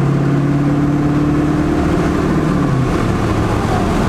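Ford 7.3 Power Stroke turbodiesel V8 running under way, heard from inside the truck's cab, with a steady drone that drops lower about three seconds in.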